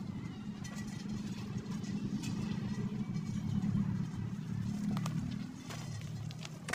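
Low, steady engine rumble that swells in the middle and eases off about five and a half seconds in, with a few light snaps and rustles from brush near the end.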